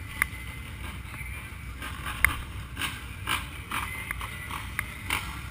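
Low steady rumble of ATV engines idling in a group, with a scattering of short sharp clicks and knocks over it, the loudest about two seconds in.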